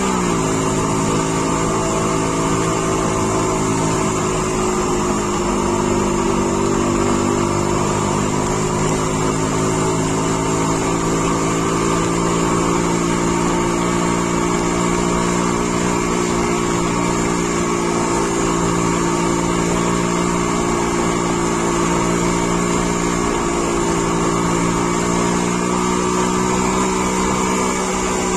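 Car engine running steadily under load, heard from inside the cabin. Its note drops right at the start, then holds almost constant.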